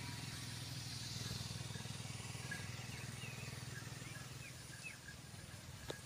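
Quiet outdoor ambience: a steady low hum with a thin, faint high tone over it, and several short, faint bird chirps near the middle.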